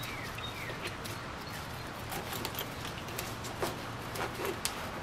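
Faint clicks and scrapes of a paint spray gun being handled and fitted onto its paint canister, over a steady low shop hum.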